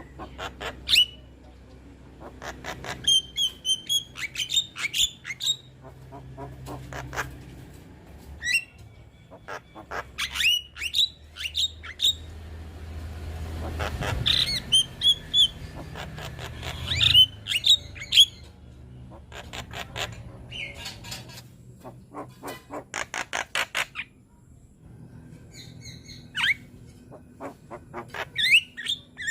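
A young Javan myna singing a varied, busy song of sharp whistles, squawky calls and fast clicking rattles, with short pauses between phrases.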